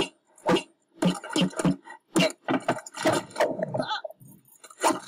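Animated sabre-toothed squirrel grunting and squeaking in a string of short bursts with brief silences between, fainter toward the end.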